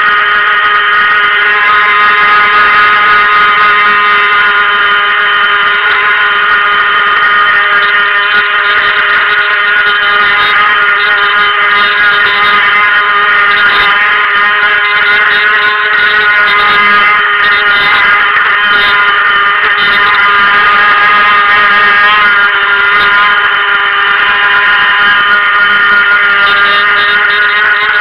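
Helion Rivos RC boat's stock brushed electric motor running steadily under throttle: a loud, even, high-pitched whine that wavers slightly in pitch.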